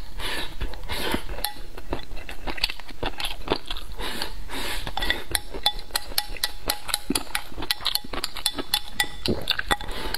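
Close-miked eating: slurping and chewing food shovelled from a ceramic bowl with chopsticks, with frequent sharp clicks of the chopsticks against the bowl.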